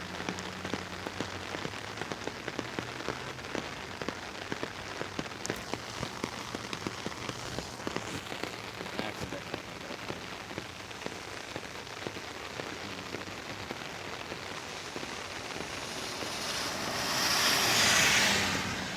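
Rain falling on an umbrella: a dense, steady stream of small drop hits on the canopy. Near the end a broad hiss swells up to the loudest point and fades again.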